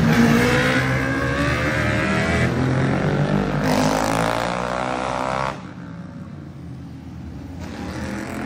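Racing motorcycle engines going past at high revs, their pitch sliding down and up as the bikes go by. About five and a half seconds in the sound falls away sharply, leaving a fainter engine further off.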